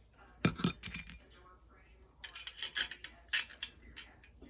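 Small metal parts clinking and knocking as they are handled and set down: a few sharp knocks about half a second in, then a run of lighter clinks in the second half.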